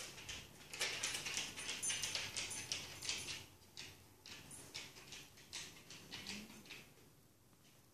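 Dog claws clicking and scrabbling on a wooden floor as a Sealyham terrier scampers off, a quick run of many sharp ticks that thins out to scattered steps.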